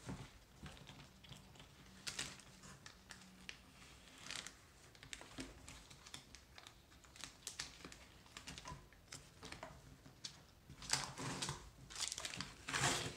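Blue painter's tape being peeled off a cardboard book mailer and crumpled, with the cardboard flaps rustling. Scattered small ticks and rustles, busier and louder near the end.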